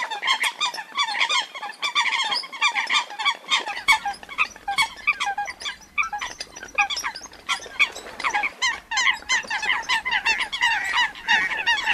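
Female coot giving distress calls of a bird separated from its flock: a dense run of short, sharp calls, several a second, with a brief lull about halfway through.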